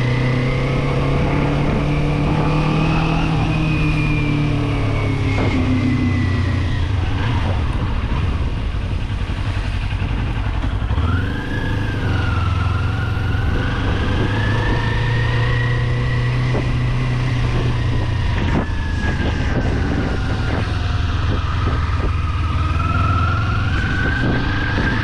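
Kawasaki Z400 parallel-twin motorcycle engine running under way. Its pitch rises and falls with the throttle, with a brief drop and a quick rise again about eleven seconds in, as from a gear change.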